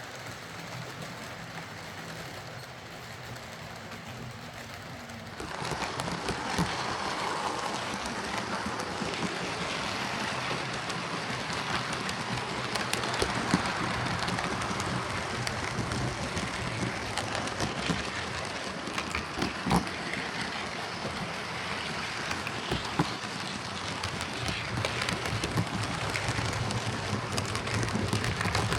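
Hornby OO gauge model steam locomotive running on track: a steady motor hum with the rattle and clicks of wheels on rail, getting louder about five seconds in. The motor is now driving the wheels again after a loose motor was shimmed back into place.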